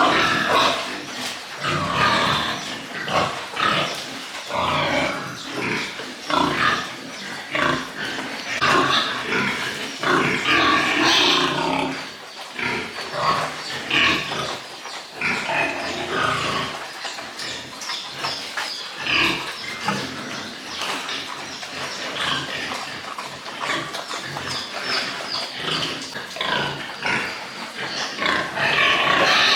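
Several pigs grunting and squealing in many short, overlapping calls.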